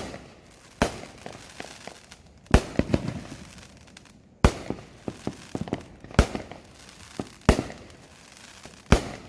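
Consumer fireworks going off around the neighbourhood: eight or so sharp booms at irregular gaps of one to two seconds, several followed by quick strings of smaller crackling pops.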